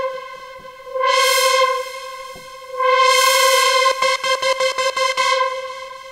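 Roland Fantom synthesizer super-saw patch holding one note while its filter cutoff is swept open and closed, so the tone twice swells bright and falls dull again. It pulses rapidly for a moment about four seconds in.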